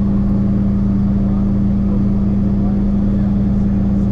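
Piper Malibu's engine and propeller running steadily, heard inside the cockpit as a loud, even drone with one strong steady hum.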